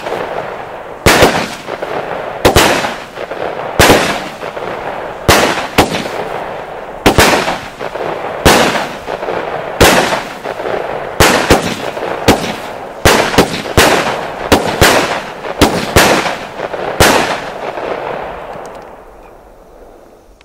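A 25 mm consumer fireworks battery firing shot after shot, about one every second and a half, coming quicker toward the end, with a steady noise between the shots. The shots stop and the noise fades away over the last few seconds as the battery burns out.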